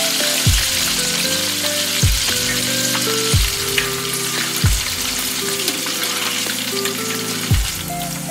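Hot oil sizzling steadily as battered chicken pieces deep-fry in a cast-iron pan. It sits over soft background music with a deep beat about every second and a half.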